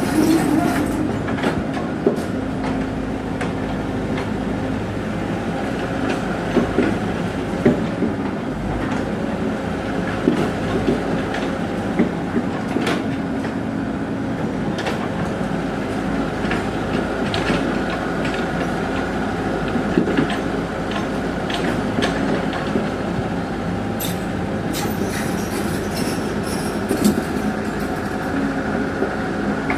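A tracked earthmover's diesel engine running steadily, with its steel tracks clanking and squealing as it works the ground.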